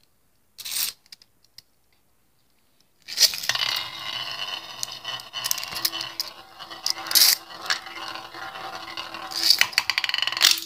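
Two Beyblade Burst spinning tops, Lost Longinus and Victory Valkyrie, land about three seconds in and spin on a glass lid stadium. Their tips scrape and rattle with a steady whirring hum, and sharp clacks come as they collide, loudest twice in the second half. The spinning stops near the end.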